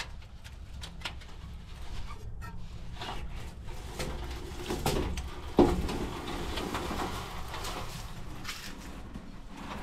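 Old metal-framed glass door being pulled open by its handle, creaking and scraping, with one sharp knock a little past halfway.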